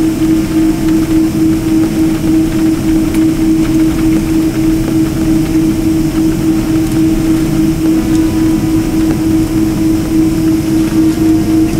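Airliner jet engines heard from inside the cabin while the plane taxis: a steady drone with a constant low hum.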